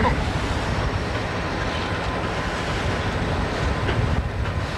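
CSX diesel-electric locomotive running as it moves with a gondola car coupled behind: a steady low rumble of engine and rolling wheels.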